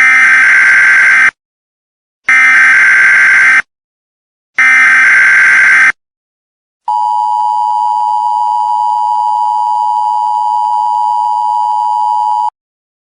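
Emergency Alert System broadcast alarm: three short digital data bursts of the SAME header, each about a second long with short gaps between them. Then the steady two-tone attention signal holds for about five and a half seconds and cuts off abruptly.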